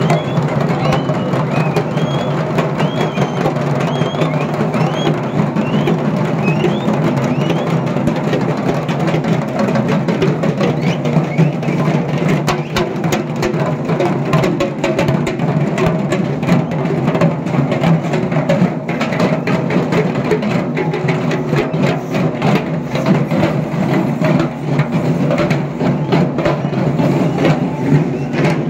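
Procession drums and percussion playing a dense, continuous beat with many sharp strikes. A high rising tone repeats about twice a second in the first several seconds.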